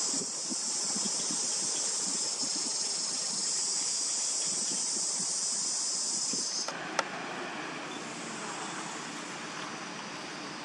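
Insects droning steadily at a high pitch, cut off abruptly about two-thirds of the way through; after a single sharp click, only a quieter, even outdoor hiss remains.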